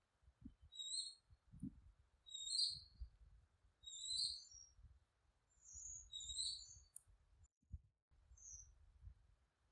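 Ryukyu scops owl giving a series of short, high-pitched calls, one every second or two, with faint low thumps underneath.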